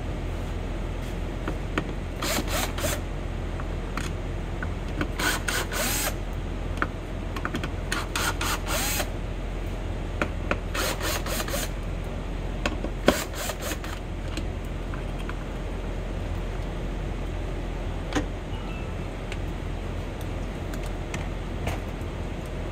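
Hand-tool work on a car's bare door frame: several short bursts of rapid clicking spaced a few seconds apart, with a sharp knock about halfway through, over a steady low hum.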